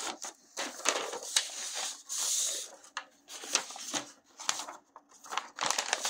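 White wrapping paper and a cardboard mailer box rustling and crinkling as the paper is pulled off a pair of paperback books, in irregular handling noises with a longer rustle about two seconds in.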